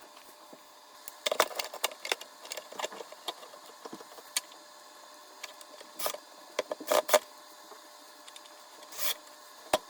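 Workshop handling noises while a drawer front is fitted to a drawer box: a busy run of light clicks, knocks and rattles in the first few seconds, then a few separate sharp knocks.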